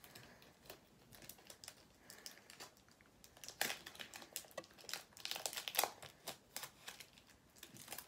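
Thin plastic wrapping crinkling as it is peeled off a new speed cube, in scattered crackles that get busier about halfway through.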